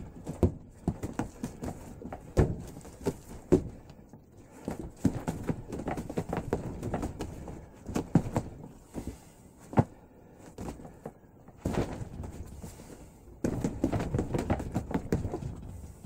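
Arms and hands knocking and slapping against the taped arms of a homemade Wing Chun training dummy: an irregular run of dull knocks and taps, with one sharper knock near the middle.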